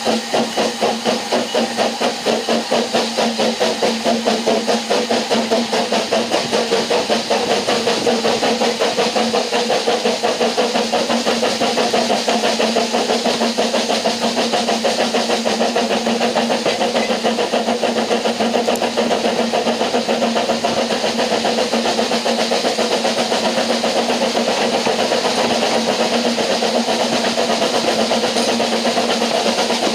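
Steam locomotive exhaust beats from Ffestiniog Railway Double Fairlie no. 12 "David Lloyd George" hauling the train, heard from the carriage behind. The chuffs come about three to four a second at first, then quicken and blur into a steady run.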